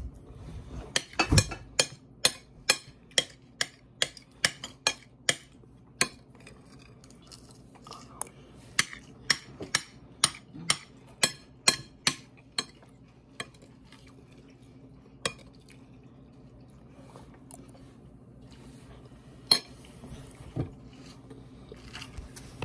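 Metal fork clinking and tapping against a dinner plate while food is eaten: quick runs of sharp clinks, about two a second, then a few scattered ones near the end.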